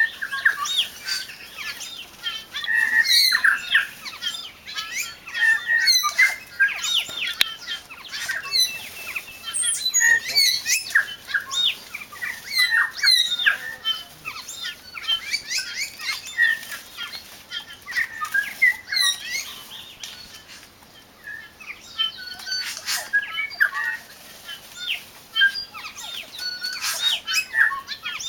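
A dense chorus of New Zealand bellbirds and stitchbirds (hihi) calling and singing at a feeder: many overlapping chirps, sharp short notes and whistled glides, with wings flapping as birds come and go. It thins briefly about two-thirds of the way through.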